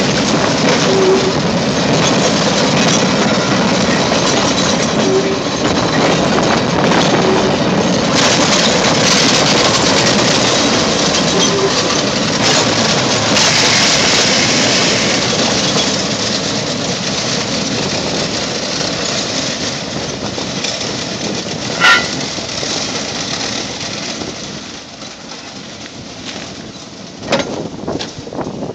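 London Underground A60 stock train running slowly past on the rails, its wheels clattering. The noise fades over the last ten seconds as it draws away. A single short, sharp high-pitched sound stands out about two-thirds of the way through.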